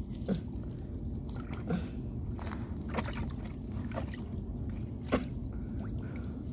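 A wooden stick pushed and worked in shallow water and mud at a pond's edge: faint sloshing and squelching, with a few sharp clicks, the loudest about five seconds in.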